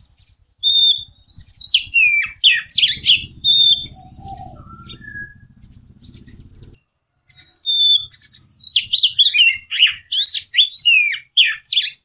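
Oriental magpie-robin singing: two bouts of loud, varied whistled phrases, the second starting a little past halfway, with a short pause between them.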